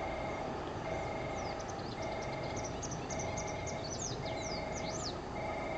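Small birds chirping over a steady two-tone electronic warning bell that repeats about once a second, typical of a railway signal or level-crossing alarm.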